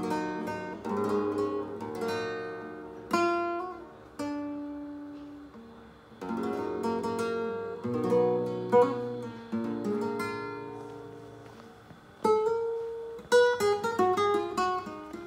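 Nylon-string classical guitar played fingerstyle: plucked notes and chords ring out and fade one after another, with a quick run of notes near the end.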